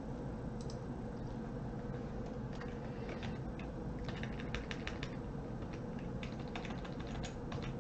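Computer keyboard keys and mouse buttons clicking: scattered keystrokes that come in quick clusters from about three seconds in.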